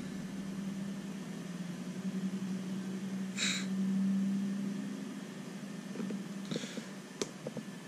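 A steady low hum, swelling a little about halfway, with a short hiss near the middle. Near the end come a few light clicks as small RC shock parts and O-rings are handled.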